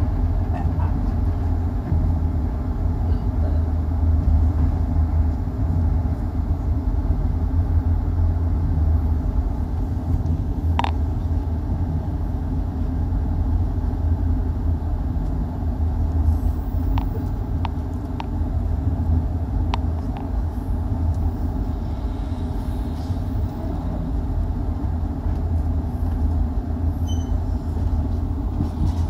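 Steady low rumble of a 25G passenger coach running along the track, heard from inside the coach. A few short, sharp clicks stand out around the middle.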